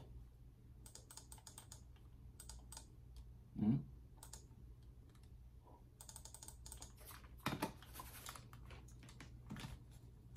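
Faint, repeated clicking and tapping of a wired computer mouse that has stopped responding: a broken mouse. One louder short sound comes about four seconds in.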